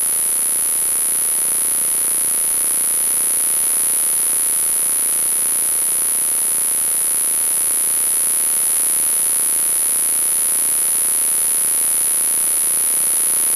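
Steady loud hiss with a constant high-pitched whine over it: electronic recording noise from a helmet camera, with no clear engine or voice heard through it.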